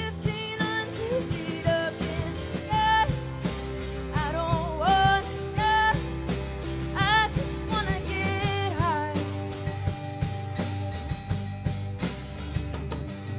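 Live rock band playing: drum kit, bass and strummed guitars under a melodic lead line with bent notes and vibrato that runs for the first nine seconds or so, after which the band carries on without it.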